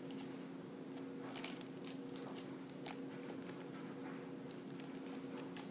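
Faint crinkling and ticking of clear plastic card sleeves as greeting cards are handled and swapped, over a steady low hum.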